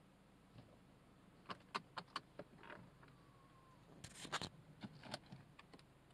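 Faint scattered clicks and knocks inside a car, a denser, louder cluster of them about four seconds in, over a low steady hum.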